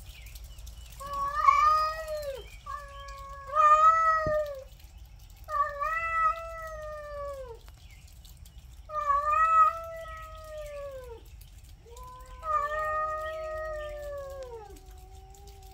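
Two domestic cats in a territorial standoff, yowling: five long, wavering yowls of a second or two each, sagging in pitch at their ends. Near the end a lower, drawn-out moan overlaps the last yowl.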